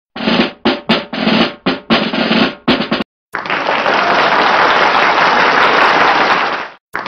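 Snare-drum intro effect: a string of separate drum hits, then after a brief gap a long steady drum roll that cuts off sharply.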